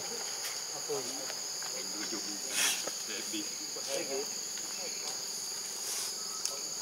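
Steady high-pitched drone of an insect chorus, with faint, short wavering voice-like sounds underneath and a brief noisy burst about two and a half seconds in.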